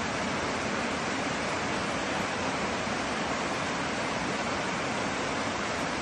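Mountain stream cascading down a rocky channel: a steady, even rush of falling water.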